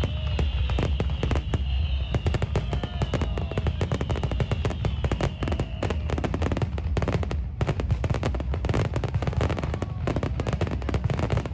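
Aerial fireworks going off in a rapid, dense string of bangs and crackles over a continuous low rumble, with several high whistling tones falling in pitch during the first half. Music plays along with the display.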